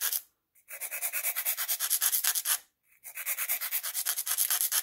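Flat file scraping along the end of a tube of bassoon cane in quick short strokes, bevelling the tube for a two-wire reed. Two runs of about two seconds each, separated by a brief pause.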